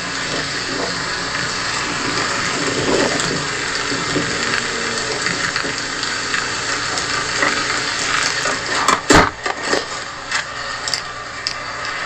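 Steady rain noise, with a single loud thump about nine seconds in and a few lighter knocks and clicks around it.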